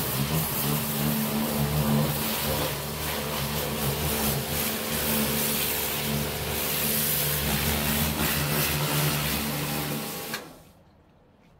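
Pressure washer running: a steady pump motor hum under the hiss of the water jet blasting wet patio paving. The sound falls away near the end.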